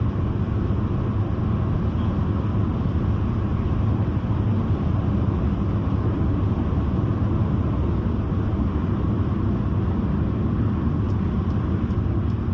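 Steady engine and road noise from inside a car cruising at highway speed, a low even rumble.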